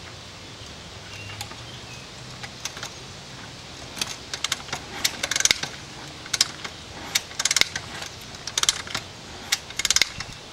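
Kick-starting a 1985 Honda XL600R's single-cylinder engine: short clusters of metallic clicks and clatter from the kick-start lever and gears. They come roughly once a second from about four seconds in, and the engine does not catch.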